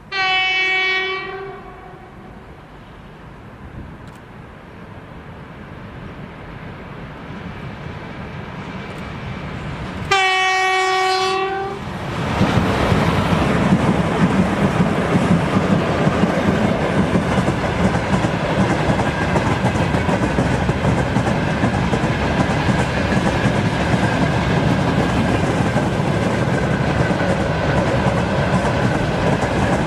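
2ES6 "Sinara" electric locomotive sounding its horn twice, a single-note blast of about a second and a half each, the second about ten seconds after the first. The locomotive and its freight train then pass close by: loud steady rolling with wheels clicking over the rail joints.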